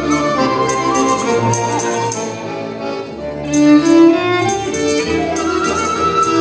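Instrumental background music: sustained melodic notes, swelling louder about four seconds in.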